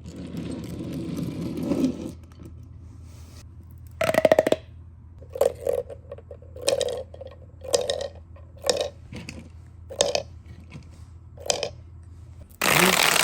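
Marbles running down a wooden marble-run track: a rolling rumble, a quick rattle, then a series of sharp wooden clacks about once a second as a ball drops from slope to slope. A louder, noisier burst comes near the end.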